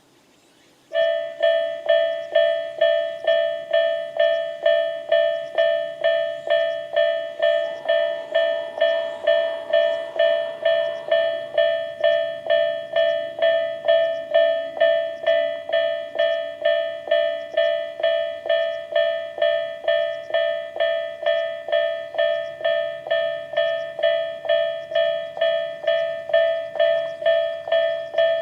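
Tobu-type electronic level-crossing warning bell ("Tobu sound A") starting up about a second in and ringing steadily at about two dings a second, the signal that a train is approaching and the crossing is closing.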